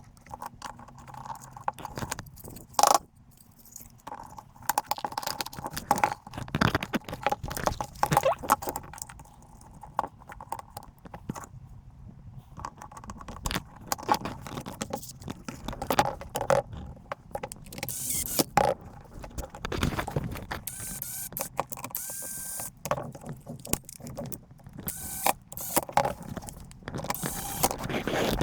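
Hands working on a MAX TG-Z4 cordless stapler under repair: a steady run of irregular clicks, taps and metallic clinks from its parts being handled, with some scraping and a few brief hissy scrapes about two-thirds of the way through.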